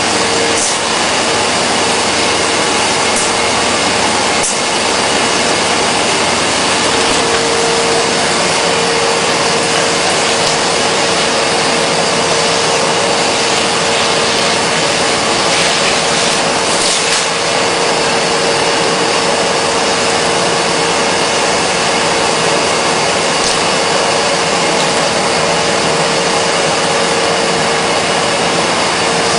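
Steady, loud whooshing machine noise with a constant hum, unchanging throughout.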